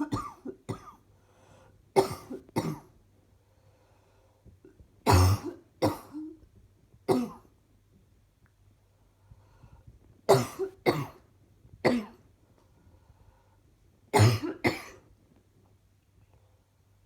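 A woman coughing in bouts of two or three sharp coughs, with pauses of a few seconds between bouts.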